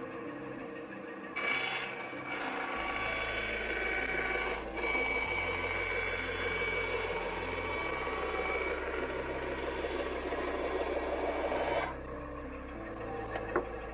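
Full Boar band saw blade cutting through a board fed along the rip fence: a rasping cut that starts abruptly about a second and a half in and stops just before 12 seconds. The blade runs dead straight without drifting. Background music with bass notes plays throughout.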